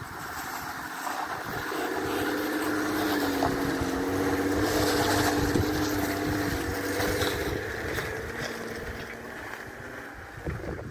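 Jeep Wrangler Rubicon's engine working under load as it climbs a sandstone rock slab. Its note swells over the first few seconds and fades toward the end as the Jeep crests the slab and pulls away. Wind buffets the microphone throughout.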